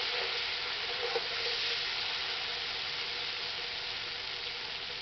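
Thick spiced masala sizzling steadily in hot oil in an iron kadai, the oil separated out from the paste, the sign that the masala is well fried. A spatula stirs it briefly in the first second or so, and the sizzle slowly fades.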